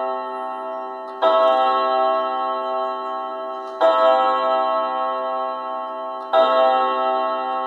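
Junghans wall clock striking the hour on its gong rods: three slow, evenly spaced strokes, each a rich ringing chord that dies away slowly until the next.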